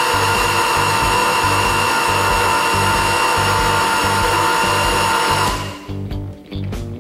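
Waring Ambassador blender's brushed motor running at a steady high whine, switched off suddenly about five and a half seconds in. Background music with a steady beat plays throughout.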